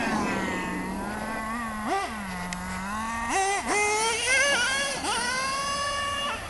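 Traxxas T-Maxx radio-controlled truck's two-stroke nitro engine revving with a high, whiny pitch. It falls back at first, rises sharply twice about two and three and a half seconds in, then climbs and holds high before dropping off just before the end.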